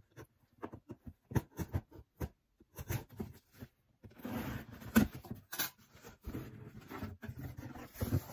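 Scissors cutting the packing tape on a cardboard box: scattered clicks and scrapes at first, then from about halfway a denser run of slicing and rasping along the seam, with one sharp snap, and the cardboard flap pulled open near the end.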